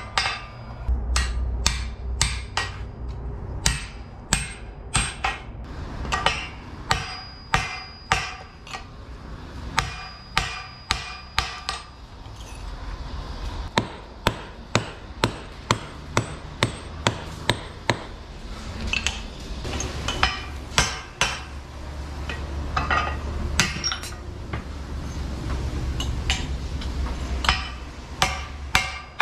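Hand hammer striking red-hot iron on a steel anvil: a long run of ringing metal blows, about one to two a second, thinning out briefly about halfway through. A steady low hum sits underneath.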